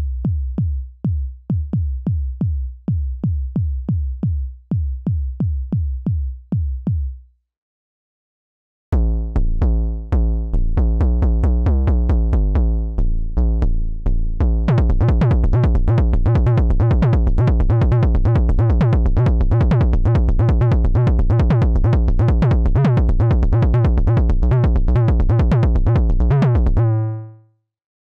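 Native Instruments Massive X wavetable synthesizer playing drum presets. First comes a synthesized kick drum repeated about two or three times a second. After a short pause a bass-heavy electronic drum pattern starts, which turns into a dense, fast run of hits over a sustained low bass about halfway through, then stops shortly before the end.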